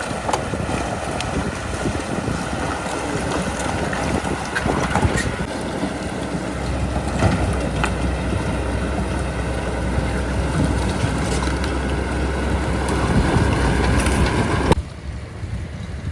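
Komatsu D37P bulldozer's diesel engine running steadily under load, with scattered clanks and knocks from the machine working. Near the end the sound cuts off abruptly and a quieter engine noise takes over.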